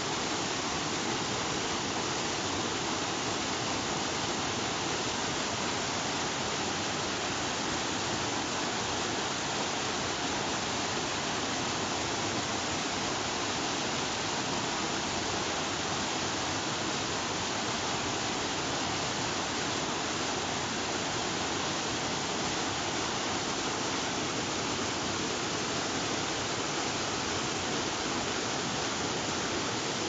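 Snowmelt water rushing and splashing white over boulders in a mountain stream, recorded close up: a steady, unbroken roar of water.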